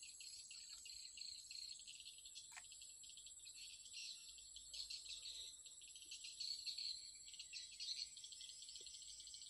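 Faint, steady high-pitched insect chorus trilling in the marsh vegetation, with one brief faint click about two and a half seconds in.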